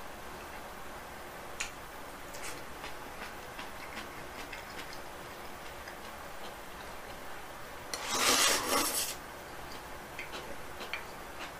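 Someone eating ramyeon with chopsticks: small scattered clicks of chopsticks and chewing, with one loud breathy rush about eight seconds in that lasts about a second.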